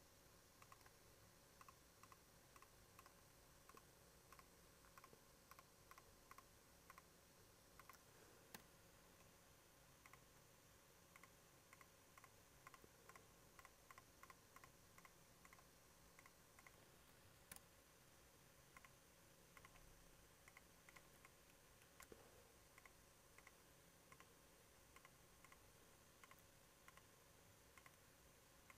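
Near silence broken by many faint, irregular computer mouse clicks, singly or in quick pairs, as points are placed one by one along an outline with a drawing tool. A faint steady hum lies underneath.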